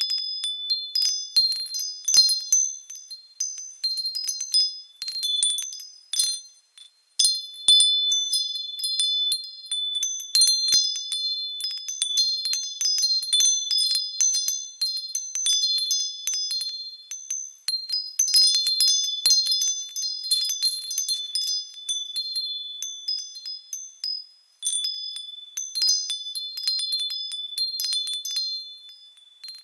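Small high-pitched Christmas bells chiming in a continuous, irregular cascade of overlapping strikes that ring on at a few fixed pitches, with brief breaks about seven seconds in and near the end.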